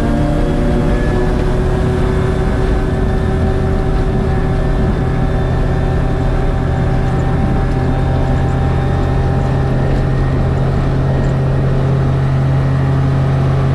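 Gyrocopter's Rotax 915 turbocharged four-cylinder engine and pusher propeller running steadily at high power during the take-off roll, heard from inside the cockpit.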